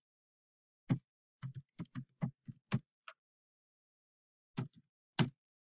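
Computer keyboard keys being typed: a quick run of about eight keystrokes, a pause of over a second, then two more keystrokes near the end.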